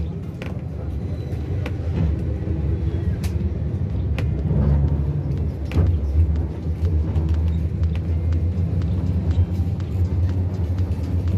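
Inside a moving electric tram: the steady low rumble of the car running on its rails, with scattered clicks and knocks.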